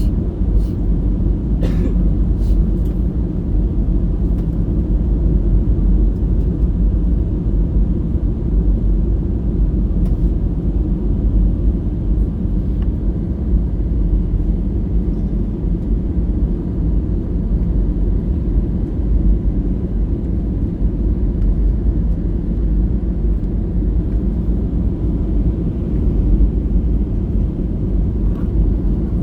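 Steady low rumble inside an Airbus A320-214 cabin during the landing approach: engine and airflow noise, with a few faint ticks.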